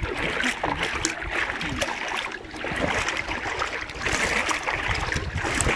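Swimming-pool water splashing and lapping around people floating and paddling slowly, an uneven run of many small splashes.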